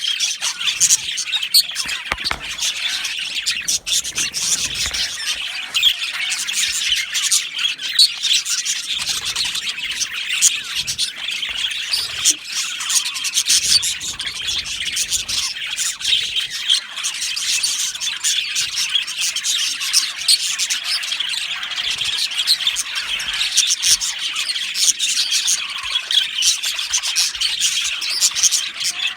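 A flock of budgerigars chattering and chirping together, a dense, continuous mix of warbles, chirps and squawks.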